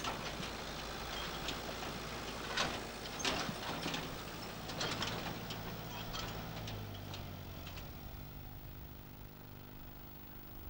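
Farm tractor's diesel engine running as it tows a two-wheeled trailer, with a few sharp knocks and rattles over it. About seven seconds in, the engine note drops lower and then fades.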